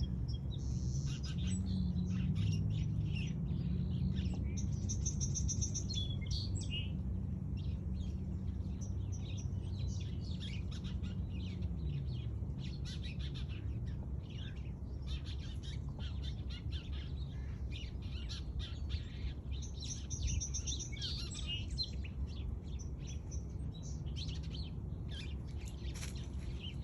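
Many small birds chirping and twittering over one another, with rapid trills now and then, over a steady low background rumble.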